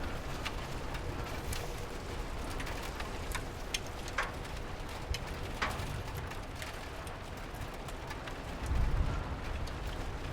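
Steady rain falling, with many scattered drops tapping sharply and a low rumble swelling briefly near the end.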